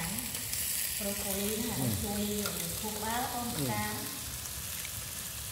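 Steady sizzling of food cooking on a barbecue grill, an even high hiss running under the meal.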